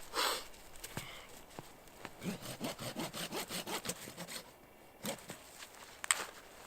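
Folding pruning saw cutting through a dead spruce branch: a run of quick saw strokes, about five a second, in the middle, with a few separate scrapes and knocks before and after.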